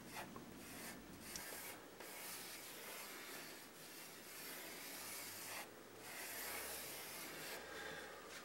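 Pencil lead rubbing across a large sheet of drawing paper as a design is sketched out: faint, continuous scratching strokes, broken by a few short pauses as the pencil lifts.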